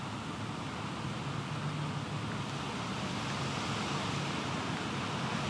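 Steady rushing noise of wind and rain in stormy typhoon weather, with no separate events.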